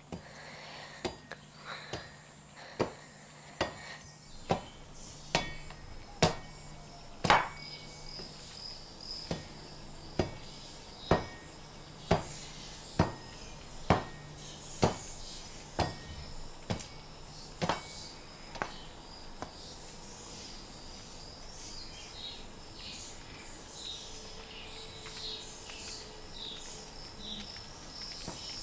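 A machete chopping a stick of wood against a plank floor, one stroke about every second for some twenty strokes, then it stops. Insects chirp steadily throughout.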